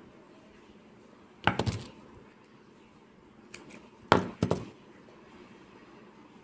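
Sharp clinks of small metal crafting tools being handled: a quick pair about a second and a half in, then a faint one and a louder cluster around four seconds in.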